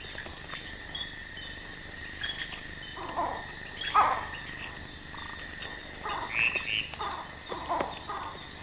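Night-time rainforest chorus: steady high-pitched insect trilling, with short falling animal calls every second or two, the loudest about four seconds in.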